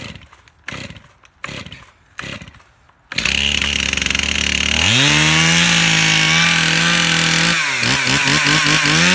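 Stihl two-stroke chainsaw being pull-started: several quick pulls of the starter cord, and the engine catches about three seconds in. It runs low briefly, revs up and holds high, then is blipped up and down in quick rev bursts near the end.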